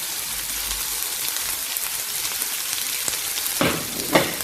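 Cooking oil sizzling steadily in a pan as chopped onions and green chillies fry in it. Two brief louder strokes come near the end.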